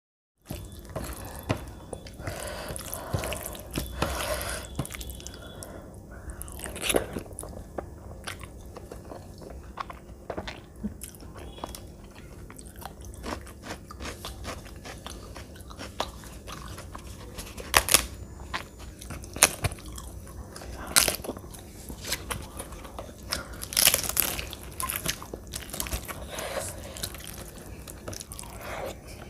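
Close-miked eating: chewing and mouth noises as rice and curry are eaten by hand, with fingers mixing the food on a steel plate. A few sharp crunchy snaps stand out in the second half.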